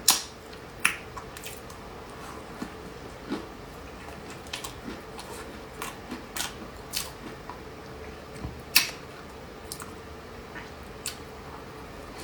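Close-miked eating of a soft snow-skin mochi dessert (xuemeiniang): sharp wet mouth clicks and lip smacks while chewing, irregular, one or two a second, over a faint steady hum.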